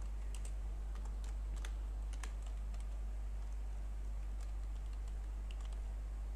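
Typing on a computer keyboard: irregular, scattered keystrokes, over a steady low electrical hum.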